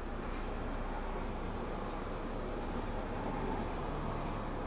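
Steady vehicle noise heard from inside the cabin of a car or van, with a faint high whine for the first couple of seconds.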